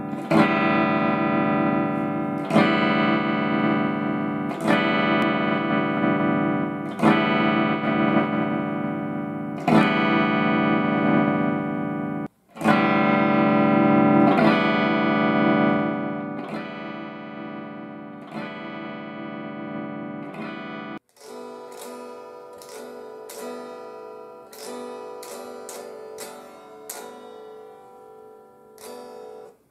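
Guitar chords struck through a Marshall Valvestate combo amp, about one every two seconds. The sound cuts out completely for an instant near the middle. About two-thirds of the way through it suddenly drops to a much quieter, thinner tone while picked notes go on: the amp's intermittent loss of volume.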